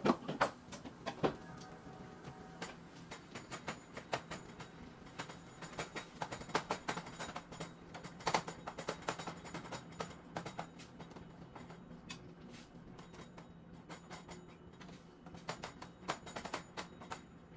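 A cooking utensil repeatedly tapping and scraping in a frying pan as ground beef is stirred and broken up, many short irregular clicks over a faint steady low hum.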